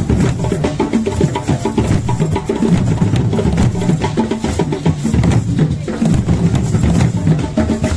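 Several traditional wooden drums played together in a steady, dense rhythm of many strokes a second, heavy in the low drum tones.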